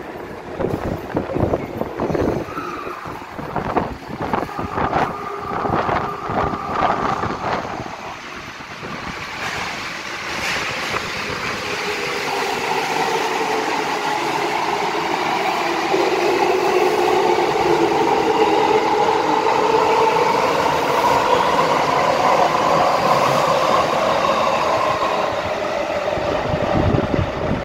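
Tokyo Metro 05 series subway train pulling out and accelerating past: knocking and clattering from the wheels and cars as it starts, then the traction motors' whine rising slowly in pitch while the running noise grows louder.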